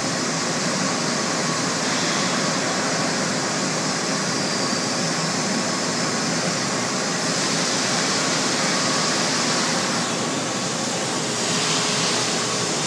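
Mazak Multiplex CNC lathe running: a steady machine hiss with a faint hum while the head-1 tool turret is jogged along its X and Z axes. The upper part of the noise shifts a few times, about two seconds in and again near the end.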